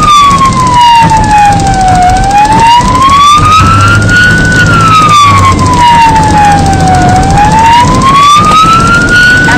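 Emergency vehicle siren wailing, its pitch sliding down and back up about every five seconds, over vehicle engine and road noise.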